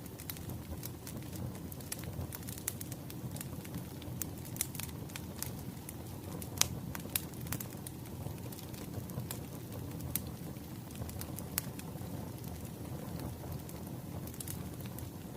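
Wood fire crackling: a steady low rumble with irregular sharp pops and snaps, one loud pop about six and a half seconds in.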